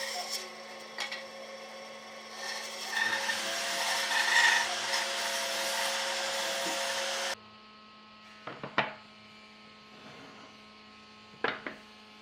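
An electric woodworking power tool runs steadily on wood, with a high whine over its noise, then stops suddenly about seven seconds in. After that a low steady hum remains, with a few short knocks twice near the end.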